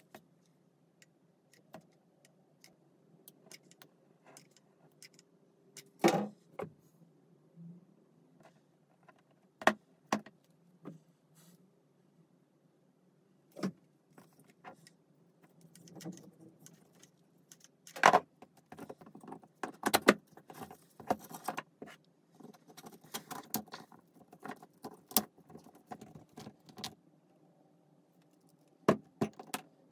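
3D-printed plastic wheel and tyre parts being handled, fitted together and set down on a wooden sill: scattered clicks, taps and clatters, irregular and a few seconds apart, busier in the second half, over a faint steady hum.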